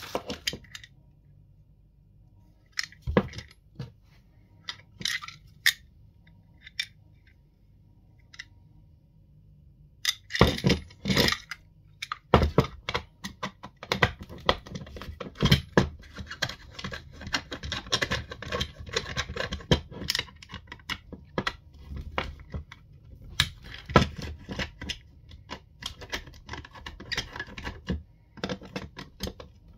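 Small hard parts being handled and worked on a Spinlock XA rope clutch during a handle replacement. A few scattered clicks and taps at first, then, from about ten seconds in, dense irregular clicking, scraping and rattling.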